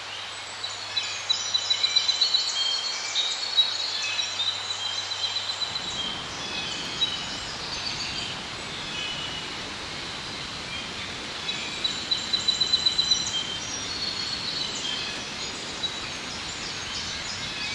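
Small songbirds singing in quick high trills and chirps, in two spells, over wind noise. A steady low hum runs for the first six seconds, then gives way to a rushing wind noise.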